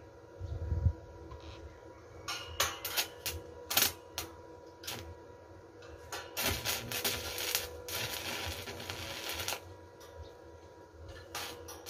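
Stick (arc) welding with a small inverter welder on steel pipe and rebar: a few short crackling arc strikes, then a steady arc crackle for about three seconds that stops abruptly, with more strikes near the end. A low thump sounds about a second in.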